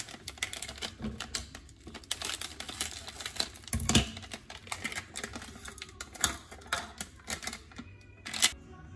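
Packet of instant freeze-dried pollack and seaweed soup crinkling and rustling as it is handled and emptied, a dense run of crisp crackles, with a dull knock about four seconds in.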